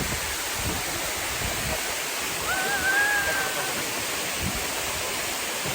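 Waterfall pouring: a steady rushing noise of falling water. About halfway through, a short high-pitched voice-like call rises slightly and holds for about a second.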